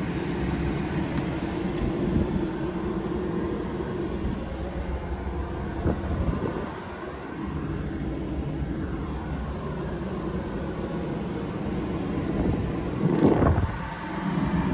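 DAF XF480's PACCAR MX-13 six-cylinder diesel idling steadily, heard from inside the cab. A brief knock and rustle comes near the end.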